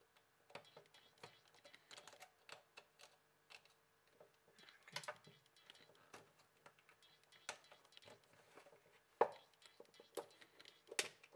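Scattered light clicks and taps of a smartphone and its small parts being handled on a tabletop during disassembly: screwdriver, screws and plastic casing knocking and clicking. A few sharper clicks come in the last few seconds.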